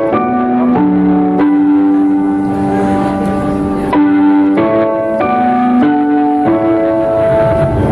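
Live band playing an instrumental passage of a pop song: held chords that change about every second, with no singing.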